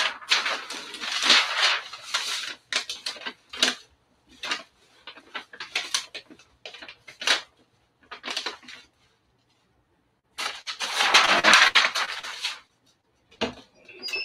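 Rustling of a towel and its paper sublimation transfer as hands slide and smooth them across a heat press platen. The rustling comes in irregular bursts, with a longer continuous stretch near the end.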